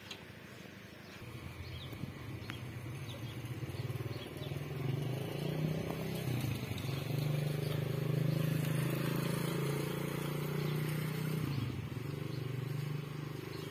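A motor engine running steadily with a low hum. It grows louder from about a second in, is strongest midway and eases a little near the end, with a few faint bird chirps above it.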